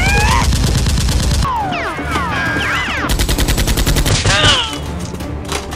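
Rapid automatic gunfire sound effects in two bursts: one running through the first second and a half, the other about three seconds in and lasting about a second. Falling whizzing glides come between the bursts.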